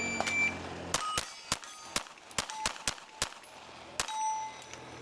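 Shot timer's short high start beep, then a fast string of 9mm pistol shots from a Limcat Custom "Steel Cat" over about three seconds, with steel target plates ringing as they are hit. The last shot, about four seconds in, is followed by a plate's longer ring.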